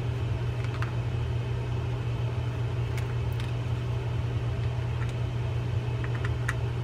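A few faint light clicks as tiny screws are backed out of a fishing reel's end cap with a small screwdriver and dropped onto a wooden table, over a steady low hum.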